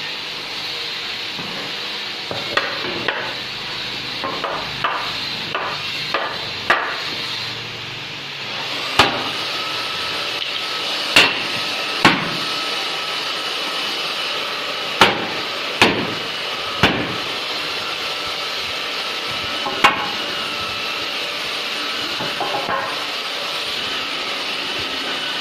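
Hammer striking wood at an irregular pace. A quick run of light taps comes first, then about seven sharper single blows spaced one to three seconds apart, over a steady background hiss.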